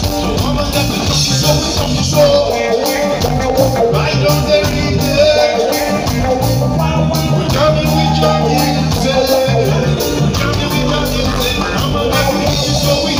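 Live reggae band playing, with electric bass, drum kit, electric guitar and keyboard under a lead vocal and backing singers, with a steady beat.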